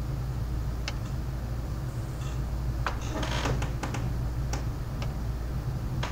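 Scattered sharp drips and taps over a steady low hum, with a quick cluster of them about three seconds in: storm runoff dripping onto hard surfaces.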